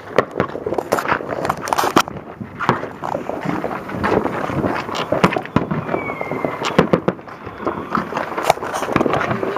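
Fireworks and firecrackers going off: many sharp pops and bangs at irregular intervals, with a brief whistle about six seconds in.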